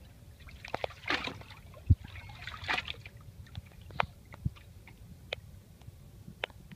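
Water sloshing and dripping around a manatee at the surface, with two short rushing whooshes about a second and two and a half seconds in, and scattered sharp drip-like clicks and a low knock.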